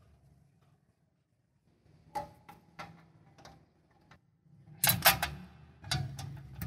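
Light metal clicks and knocks as the chrome rear mudguard and frame parts of a Honda CD70 motorcycle are handled and fitted together: a few spaced clicks, then two louder clusters of clanks about five and six seconds in.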